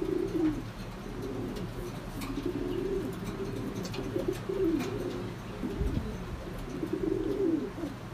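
Domestic pigeons cooing: a run of low, rolling coos, one after another, with a few faint ticks.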